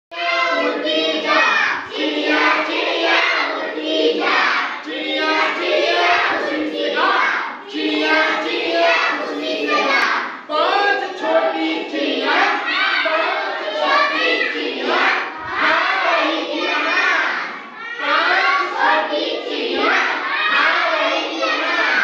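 A group of children shouting and chanting an action rhyme together with a man leading, in short phrases one after another.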